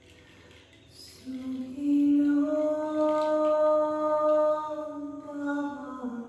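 A woman's voice singing one long wordless held note in a chant-like tone. It comes in about a second in, rises slightly, holds steady, then slides down in pitch near the end.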